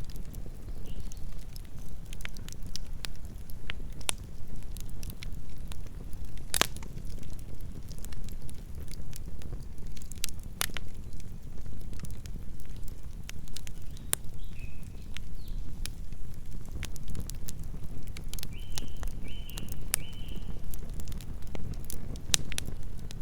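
Campfire burning: a steady low rumble of flames with scattered sharp crackles and pops from the burning wood. Late on, three short high chirps sound in quick succession.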